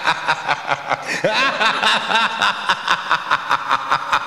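Produced intro sound effect: a rapid, even pulsing beat of about four to five pulses a second, with short rising chirps in the first half.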